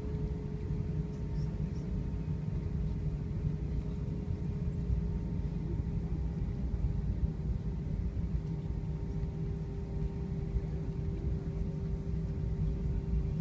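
Cabin noise inside an Airbus A320 taxiing at idle thrust: a steady low rumble with a constant hum over it.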